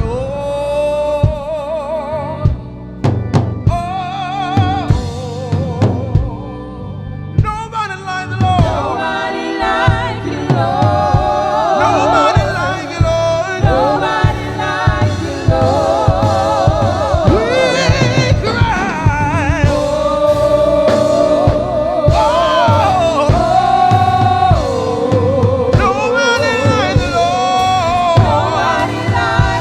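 Gospel music: a singer with strong vibrato over a band with a steady drum beat, with what sounds like a choir joining in.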